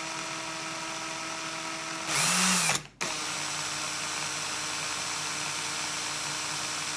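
Cordless drill motor running at a steady speed, spinning a small copper coil bobbin to wind fine magnet wire onto it. About two seconds in it turns louder and rougher for under a second, cuts out briefly, then runs steadily again.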